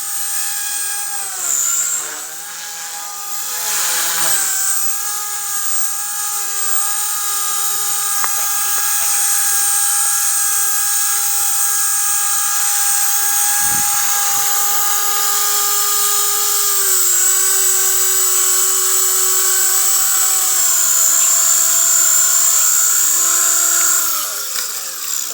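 Blade 180 CFX micro RC helicopter in flight: a steady high whine from its electric motor, gears and spinning rotors. The pitch dips briefly about two and four seconds in, steps down about two-thirds of the way through, and falls away near the end.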